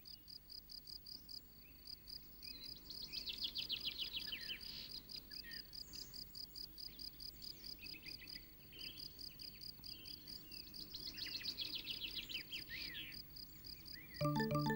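Countryside ambience: crickets chirping in a steady, fast pulsing rhythm, with songbirds singing short falling trills over them twice. Music comes in just before the end.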